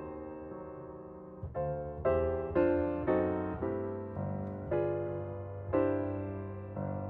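Background piano music: slow chords and single notes struck one after another, each fading away before the next.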